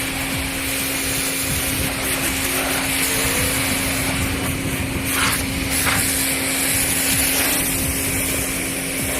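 Pressure washer running steadily with a constant motor hum, its spray hissing. About five and six seconds in the spray briefly sweeps across a surface.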